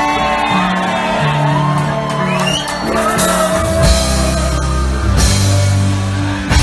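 Live forró band playing a passage without words: steady bass and drums under a melodic lead line, with cymbal crashes about four and five seconds in.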